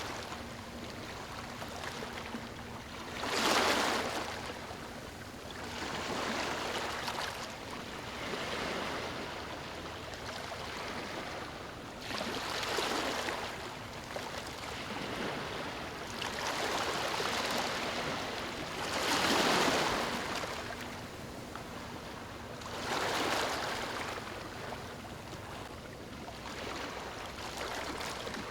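Gentle waves lapping on a beach, each wash swelling and fading every few seconds, the strongest about a third of the way in and again just past the middle.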